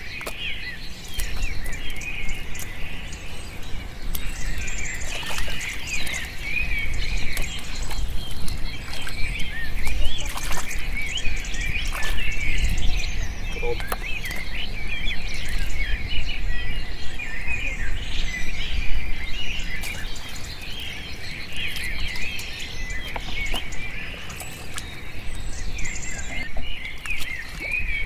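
A chorus of many birds chirping and calling without a break, with a low rumble underneath and a few short clicks scattered through.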